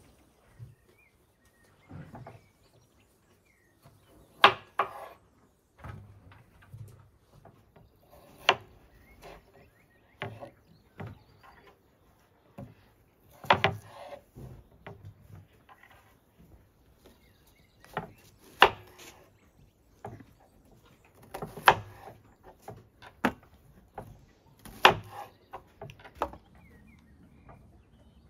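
Kitchen knife slicing peeled potatoes on a wooden cutting board: sharp knocks of the blade striking the board, irregular and a second to a few seconds apart.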